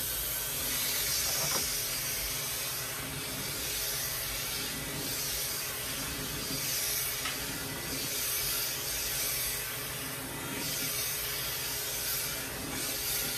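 Clipper vacuum running: a steady suction hiss from the vacuum hose attached to electric pet clippers as they are run through a long-haired cat's coat with a number one comb attachment, swelling slightly as the clipper moves.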